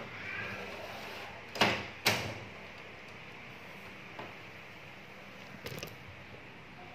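Two sharp knocks about half a second apart, then a short rattle of clicks near the end.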